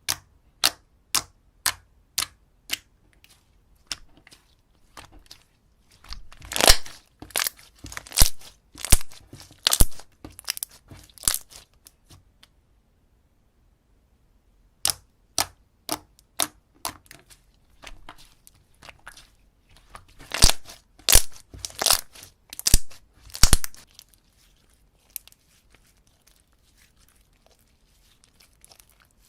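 Slime being handled, making sharp clicks and crackling pops: single clicks about twice a second at first, then louder runs of crackles, a pause of about three seconds in the middle, then more clicks and crackles that thin out near the end.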